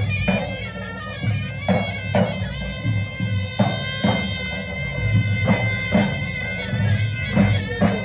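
Tunisian festive folk music: a reedy wind instrument plays a nasal, sustained melody over a drone, while large double-headed drums beat heavy strokes in pairs about every two seconds.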